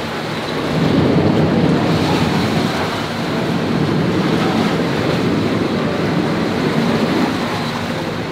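River ferry under way: a steady rush of water and wind noise on the microphone, with a low engine hum beneath.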